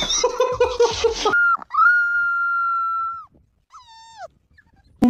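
Dog whining: one long, high, steady whine of about a second and a half, then a short whine that falls in pitch. Before them, about a second of busy noise cuts off abruptly.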